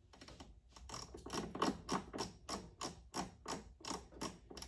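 Air fryer controls clicking in a quick, even run of about three to four clicks a second as the cooking time and temperature are dialled in, like a detented knob being turned.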